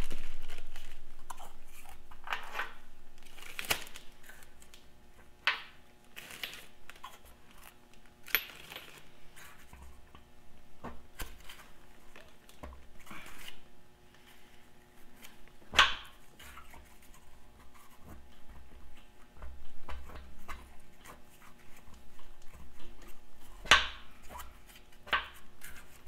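Irregular metal clicks, taps and clatter of a screwdriver working at the valve lifters in a Farmall Super M engine block, with some lifters refusing to come out. A faint steady hum runs underneath.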